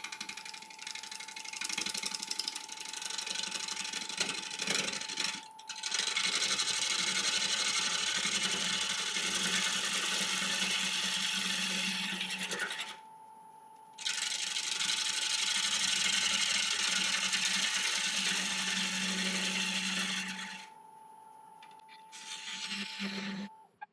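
Turning tool cutting the inner wall of an applewood natural-edge bowl spinning on a wood lathe. The cut is interrupted, the tool bouncing as it passes through air at the gaps in the live edge. The cutting stops twice briefly while the lathe's steady motor whine goes on, and the motor cuts out near the end.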